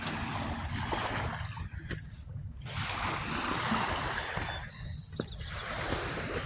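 Water washing on the shore in two swells of hiss, over a steady low wind rumble on the microphone, with a few sharp clicks.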